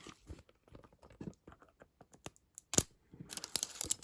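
Small clicks and taps from handling a Poké Ball booster tin, with one sharper click near the end, followed by the crinkle of booster-pack wrappers.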